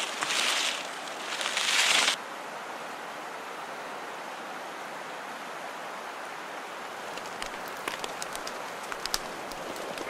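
Dry grass tinder rustling and crunching as it is handled, in two loud stretches over the first two seconds. Then a steady hiss, with scattered sharp crackles from about seven seconds in as the burning tinder catches.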